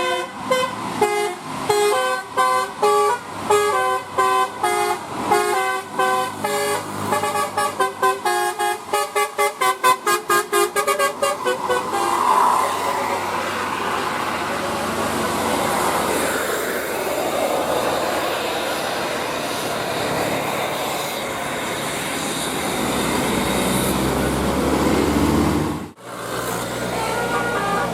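Bus 'telolet' multi-tone horn playing a rapid run of short stepping notes that speed up over about twelve seconds. A long, broad rush of vehicle noise follows, briefly cutting out near the end.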